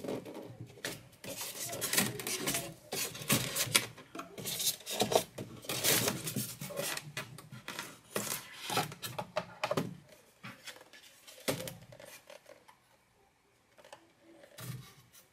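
Handling noise of a plastic quadcopter being worked out of the fitted foam insert of its case: rubbing, scraping and clicking of plastic against foam, busy for about the first ten seconds, then quieter with a couple of single knocks.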